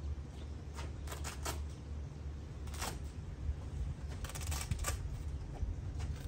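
Short rustles and clicks of an ARB roll-out awning's fabric and aluminium frame being handled, scattered through, with a cluster about four to five seconds in, over a steady low hum.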